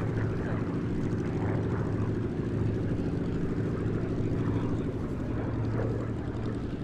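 Rolls-Royce Merlin V12 engine of a WWII propeller fighter passing overhead: a steady, even-pitched drone that eases off slightly near the end.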